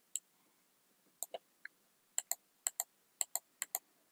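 Computer mouse button clicking: sharp single clicks, mostly in quick press-and-release pairs, about five pairs over three seconds.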